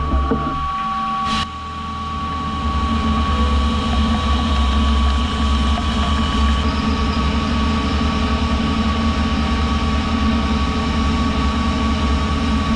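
DN Solutions Puma TT2100SYYB CNC lathe drilling Haynes 188 nickel-cobalt superalloy with a solid carbide drill under flood coolant. Steady machine hum with a constant high tone and the hiss of coolant spray; a deeper rumble sets in about a second and a half in.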